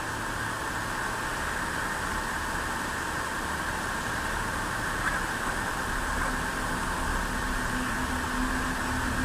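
A steady rushing noise with a faint low hum that comes in about six seconds in.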